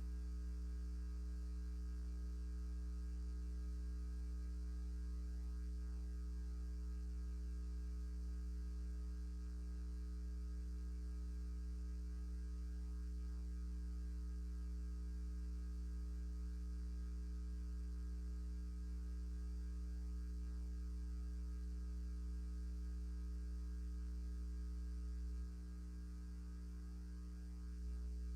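Steady electrical mains hum, a low drone with a few fainter steady higher tones above it, dipping slightly in level near the end.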